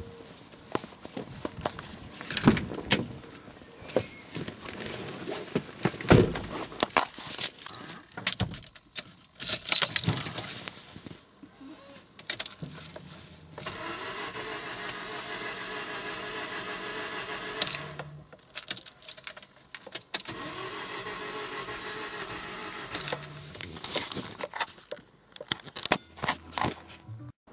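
Keys jangling and clicking, then the Rover Streetwise's starter cranking the engine twice, each try about four seconds long, without the engine catching: the car won't start. More key rattling and clicks follow near the end.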